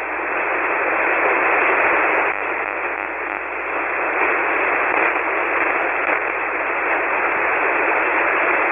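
Band noise from a single-sideband amateur radio receiver: a steady hiss heard through the narrow voice passband with no station transmitting, the open channel between overs.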